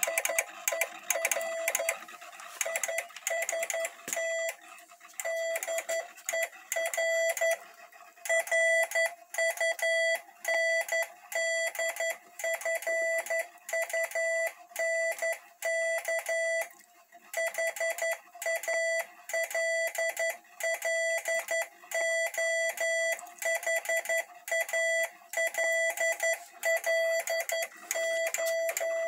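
Morse code sent by a Hell Morsegeber paper-tape keyer: a steady tone of about 660 Hz keyed on and off in dots and dashes, at roughly 53 characters a minute, with a few longer pauses between groups, over the fast mechanical clicking of the tape transmitter.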